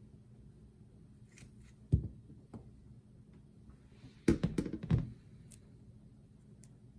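Pruning shears cutting into the tough caudex of an Ebisu-warai (Pachypodium densiflorum): one sharp clunk about two seconds in, then a quick cluster of knocks and clicks a little after four seconds.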